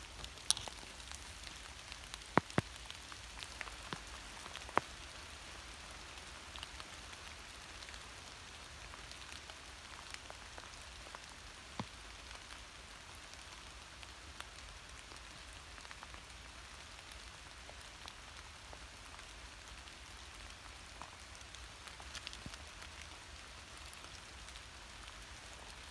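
Steady light patter of rain in woodland, with a few sharp clicks and taps scattered through it, the loudest in the first five seconds.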